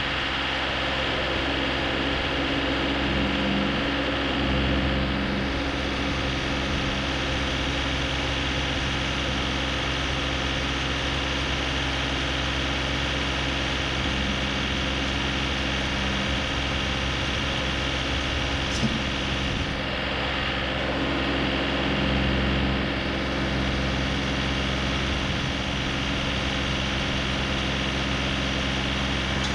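John Deere compact tractor's diesel engine idling steadily, with a single sharp click about two-thirds of the way through.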